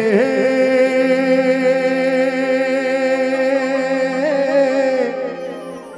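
A singer holds one long, wavering 'he' note of a Gujarati garba folk song for about five seconds over a steady drone, then breaks off near the end.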